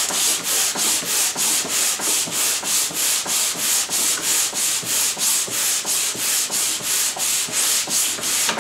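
Hand sanding a hard, dense Lyptus board with a two-handled sanding block loaded with VSM Vitex 120-grit paper: quick back-and-forth strokes, about four a second, each a high, hissing rasp.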